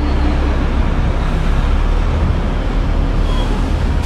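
Steady low rumble of idling semi trucks in a truck stop lot, with wind blowing across the microphone.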